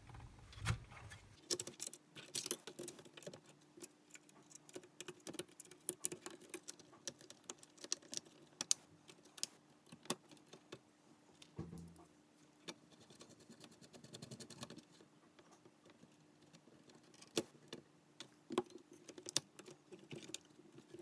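Faint scattered clicks, taps and light rattles of an LCD monitor's power supply board being handled back into its sheet-metal chassis and its wire connectors being plugged in, with a soft knock about halfway through.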